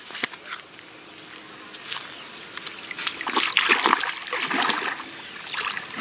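Bare feet wading into shallow water, splashing and sloshing with each step; the splashes are loudest a little past halfway.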